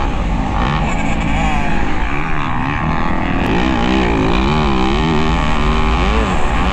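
Motocross dirt bike engine revving up and down over and over as the throttle is worked, with a heavy low rumble of wind on the microphone.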